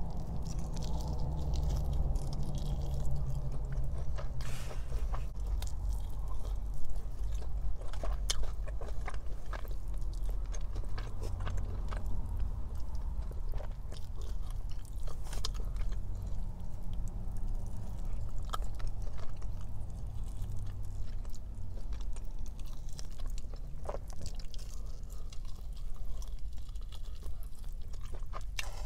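Close-up chewing and biting of Korean spicy fried chicken and beef bulgogi, with many short, crisp crunches.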